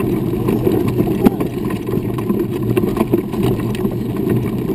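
Wheels rolling over a dirt and gravel road: a steady rumble with scattered small clicks and ticks of stones.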